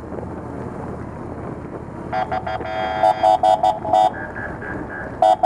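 Police motorcycle horns sounding a quick series of short honks, about two seconds in, over a steady outdoor rumble of traffic and wind. A higher, pulsing tone joins briefly near the end before more honks.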